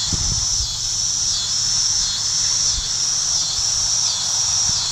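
Night insect chorus of crickets: a loud, steady high shrill that pulses about every 0.7 s. Underneath is a low steady hum from the tractor and round baler working in the field.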